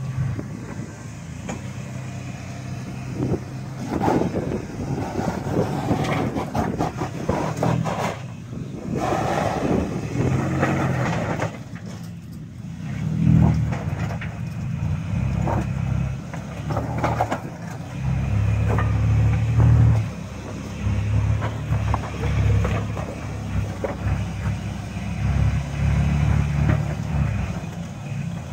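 Lifted Toyota Tacoma pickup's engine running under load while rock crawling. The revs swell and ease off again and again as it climbs over boulders.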